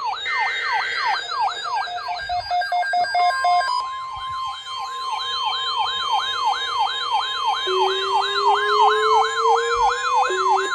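Several electronic weather-alert sirens sounding over each other: a sweeping siren tone repeating about three times a second and a faster, higher warble. About three seconds in, a steady high alert tone joins them, like the long tone of a weather radio.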